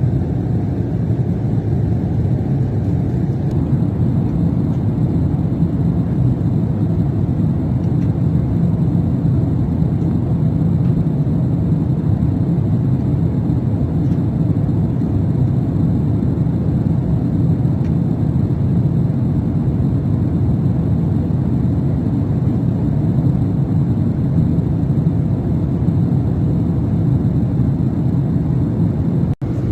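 Steady low rumble of an Airbus A380 in flight, heard from inside the passenger cabin: engine and airflow noise. It cuts out for an instant near the end.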